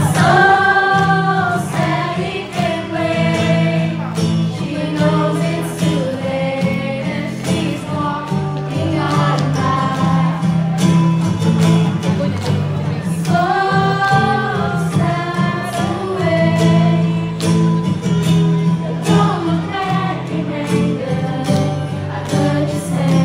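A boy singing a song to acoustic guitar accompaniment, the melody rising and falling in long sung phrases over a steady low accompaniment.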